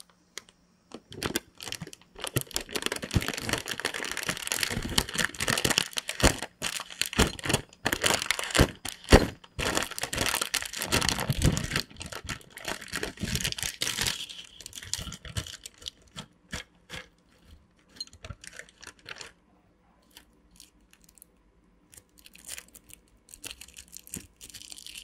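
Plastic snack bag crinkling and tearing as it is handled and opened, in dense crackles for the first half. Then sparser crinkles and clicks, with a small clear plastic wrapper crinkling near the end.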